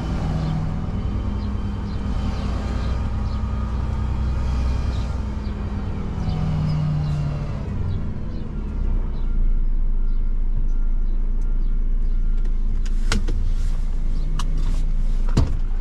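Renault refuse truck's diesel engine heard from inside the cab, running under light load with shifting, gliding tones as the truck creeps forward. It settles into a steady, slightly louder hum about nine seconds in, and a few sharp clicks come near the end.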